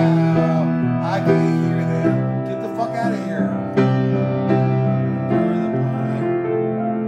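Kohler & Campbell piano playing sustained chords, a new chord struck about every second.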